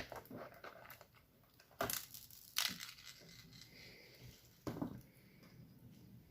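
Slime being squeezed and worked by hand, with a few sharp crackling squishes, the loudest about two and two and a half seconds in and another near the end.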